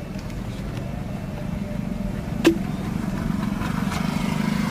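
A car's engine and road noise heard from inside the cabin while driving, growing a little louder in the second half. One sharp click comes about two and a half seconds in.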